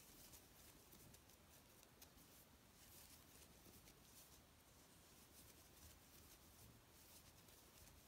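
Near silence with faint scratchy rustling and ticking as a crochet hook pulls cotton macramé cord through stitches.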